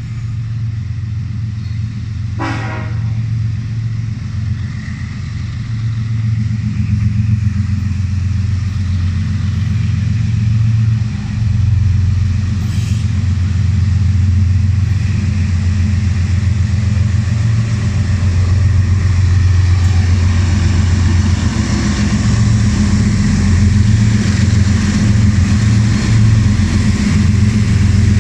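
Diesel-electric freight locomotive approaching, its engine rumbling steadily and growing louder, with wheel and rail noise building in the last third.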